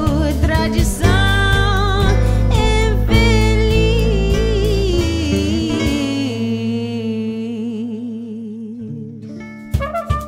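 Live jazz band: a woman singing with vibrato over guitar, piano, bass and drums. The band thins out and the phrase falls and fades, then the drums strike back in near the end.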